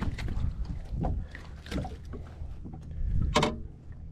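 Water splashing and lapping against the side of a small fishing boat as a small bass is pulled from the water and landed by hand, over a steady low hum. Several short knocks, the loudest about three seconds in.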